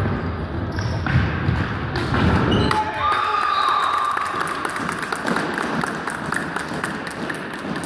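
A small crowd shouting and cheering in a sports hall, then clapping for several seconds, starting about three seconds in.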